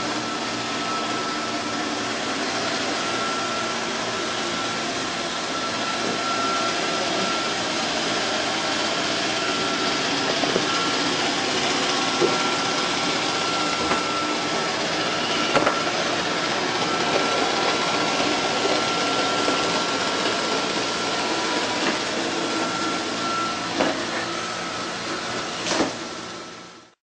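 Robotic vacuum cleaner running: a steady whir with a thin high whine, broken by a few sharp knocks, fading out near the end.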